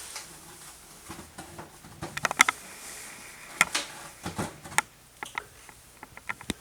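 Irregular small clicks and light knocks of a wrench working the brine line's compression nut tight on the softener valve's ejector port, clustered from about two seconds in.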